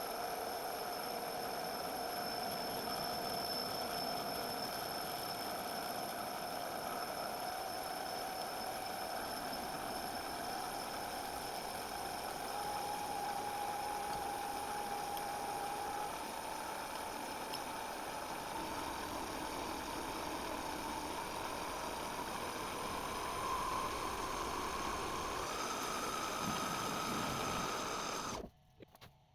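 Metal lathe running and cutting a mild-steel plate, a steady machining noise with a whine that slowly rises in pitch and steps up once near the end. It cuts off suddenly just before the end.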